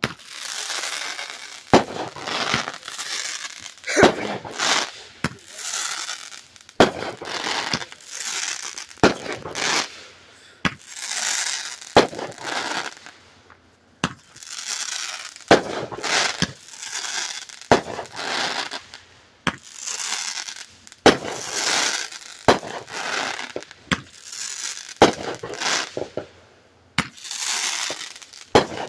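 Ground fountain firework spraying sparks: a sharp pop about every second or so, each followed by a second of hissing spray, over and over.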